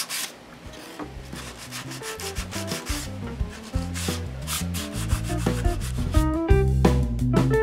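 Hand sanding a plywood board with a sanding pad: quick back-and-forth rubbing strokes. Music with a bass line comes in about a second in and grows louder, taking over near the end.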